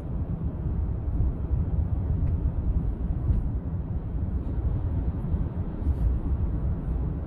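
Steady low rumble of a car's road and engine noise, heard from inside the cabin while driving on a highway.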